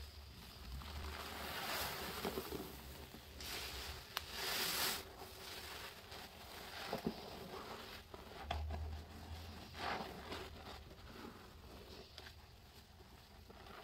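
A kitchen sponge loaded with dish soap and detergent powder squeezed and pressed by gloved hands: gritty crunching and squishing of the soapy paste, in irregular squeezes, the loudest a few seconds in.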